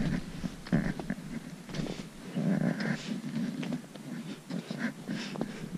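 Footsteps crunching through snow and a trekking pole planting in it, uneven crunches and clicks, with heavy breathing close to the microphone.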